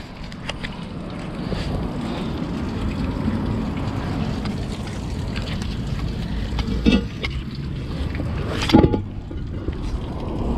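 Wind rumbling on the microphone, with knocks and scrapes of a heavy cast iron manhole cover being handled and set back over its opening: two clunks about two seconds apart, the second the louder.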